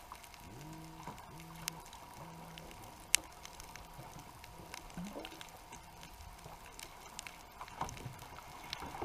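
Underwater sound on a reef bottom heard through a camera housing: a few scattered sharp clicks over a low hum that comes and goes in short stretches, with a faint steady whine underneath.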